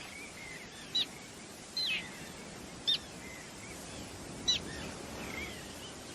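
Common terns calling: four short, sharp calls about a second apart, with fainter chirps in between, over a steady background hiss.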